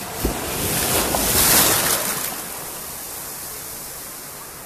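Small sea wave breaking and washing up the sand close to the microphone: a loud rush of surf over the first two seconds that settles into a steady hiss of water.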